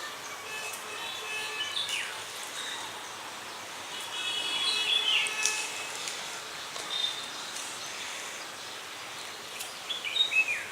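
Birds chirping on and off, several short high calls over a low background hiss.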